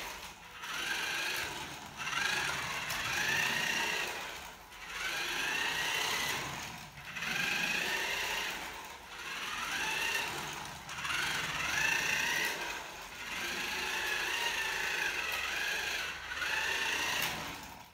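Small electric drive motor and plastic gears of a 1:18 toy RC car whining as it is driven. The pitch rises and falls as it speeds up and slows down, in bursts of one to three seconds with short pauses between.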